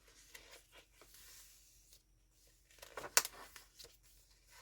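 Paper pages of a handmade junk journal being handled and turned, mostly faint, with a few sharp crisp rustles about three seconds in.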